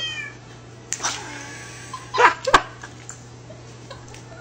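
Domestic cat meowing several times: a falling meow at the start, another about a second in, and two louder, harsher calls close together a little past two seconds in. A low steady hum runs underneath.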